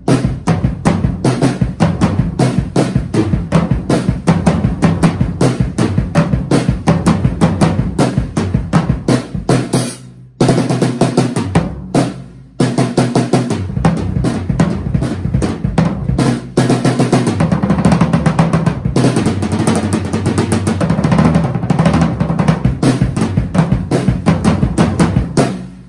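A drum kit being played: a Rogers snare and toms and a 22-inch bass drum, all on old reused heads, with cymbals, in a continuous stream of strokes that breaks off briefly twice, about ten and twelve seconds in.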